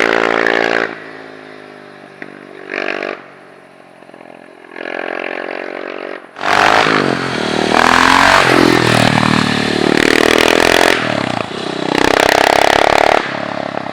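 KTM 690 SMC R single-cylinder four-stroke engine with an Akrapovic exhaust running without its dB killer, revved repeatedly. After a loud rev at the start it drops back low with two short blips, then from about halfway it is revved hard and long, the pitch swinging up and down, before dropping back near the end.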